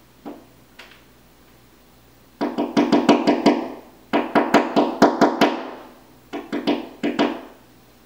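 Pileated woodpecker pecking at a glass patio door: two single taps, then three rapid volleys of sharp knocks on the glass, about eight a second.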